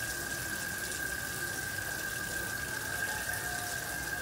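Kitchen faucet running a steady stream of water into a stainless steel sink, with a steady high whistling tone under the splashing.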